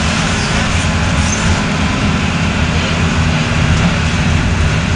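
Mercedes-Benz OF-1721 bus's OM-366LA turbocharged inline-six diesel engine running steadily at an even speed.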